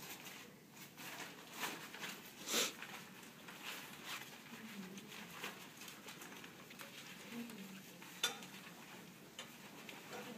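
Plastic chemical drape rustling and crinkling as it is handled and wrapped around a mannequin head, with a couple of sharp clicks.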